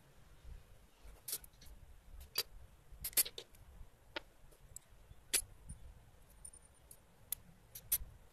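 Irregular sharp metallic clicks and scrapes of a knife blade prying the nickel connecting strip off the ends of cylindrical laptop battery cells.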